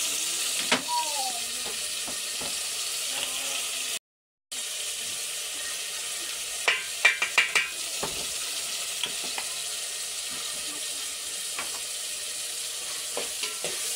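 Chopped tomatoes sizzling as they fry in a metal pot, with a steady hiss throughout. A steel serving spoon stirs them, knocking and scraping against the pot in a quick run of clinks about seven seconds in. The sound drops out completely for half a second just before the middle.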